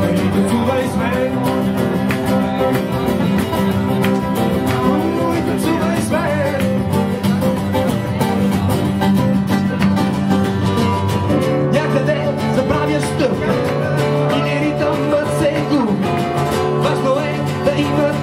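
Acoustic guitars strummed and picked together in a live song, with a man singing into a microphone over them in the second half; the chords shift about two-thirds of the way through.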